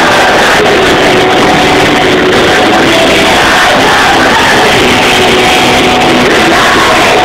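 Loud live rock band playing with electric guitars, heard from the crowd.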